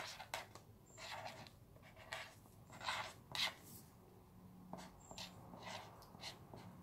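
Writing by hand on paper: faint, short, irregular scratching strokes.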